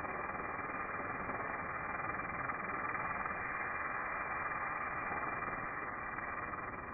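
Pressure washer spraying water, a steady unbroken hiss.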